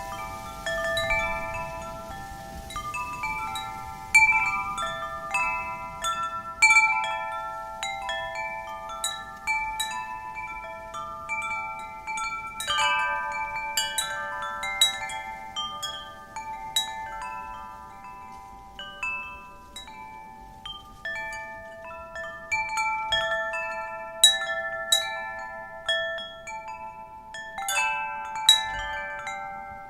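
Wind chimes struck irregularly by the wind, several clear bell-like tones ringing on and overlapping, with a faint low rush of wind underneath.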